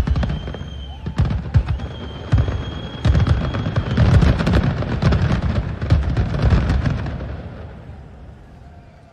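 Fireworks going off: a dense barrage of bangs and crackling, with two long high whistles in the first few seconds, dying away over the last couple of seconds.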